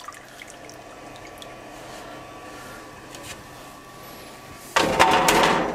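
A sous vide water bath with its immersion circulator running: a steady low hum with a faint whine, and light drips and trickles as the wet lid is lifted off. Nearly five seconds in, a much louder rush of splashing water lasts about a second.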